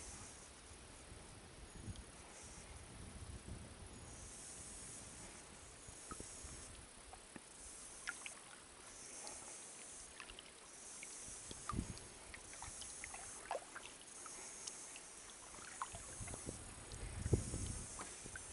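Kayak being paddled quietly: soft paddle strokes and water moving against the hull, with small scattered ticks and drips and a stronger low stroke near the end. High insect buzzing comes and goes behind it.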